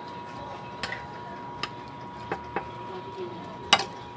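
Metal spoon and fork clinking and scraping against a ceramic plate while mixing an eggplant salad: about five sharp clinks, the loudest near the end. A faint steady tone sits underneath.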